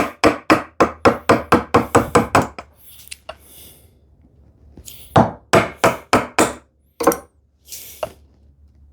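Wooden mallet rapidly tapping a chisel into a tenon cheek to split away the waste: a quick run of about a dozen blows, four or five a second, then a pause of a couple of seconds and a shorter run of blows.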